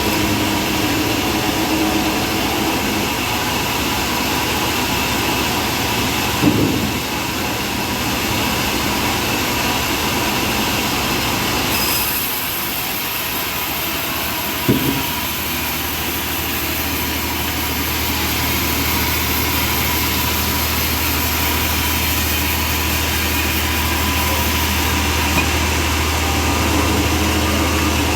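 Engine-driven portable bandsaw mill running steadily while sawing a trembesi log, with a short knock about six seconds in and another about halfway. The low hum grows stronger after the second knock.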